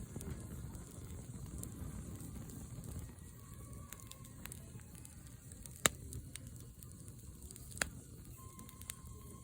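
Wood campfire crackling over a low steady rumble, with scattered small snaps and two sharp pops, the loudest about six seconds in and another near eight seconds.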